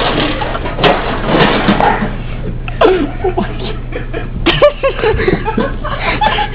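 Excited wordless voices and laughter from a small group, with a couple of sharp knocks and a steady low hum underneath.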